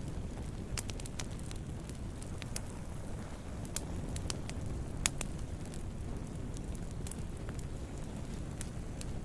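Wood fire burning with a steady low rumble of flames and irregular sharp crackles and pops, the loudest pop about five seconds in.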